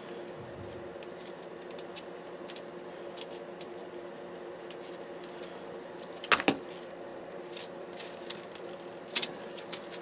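Plastic and metal parts of a partly dismantled DVD-RW drive clicking and clacking as they are handled: a sharp cluster of clacks about six seconds in and another about nine seconds in, with light ticks between, over a steady hum.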